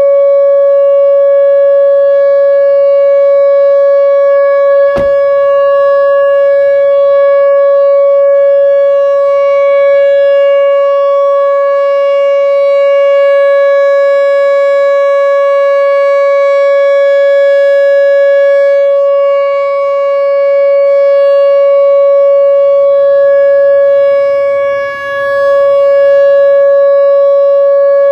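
Whelen Vortex R4 electronic outdoor warning siren sounding its steady alert tone for a test: one loud held pitch that does not rise or fall. A sharp click about five seconds in, and the level dips briefly near the end.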